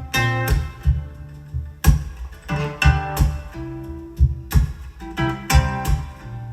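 Recorded music playing from a Bang & Olufsen BeoSound Balance wireless speaker: an instrumental passage of plucked acoustic guitar with bass and regular drum beats, without vocals.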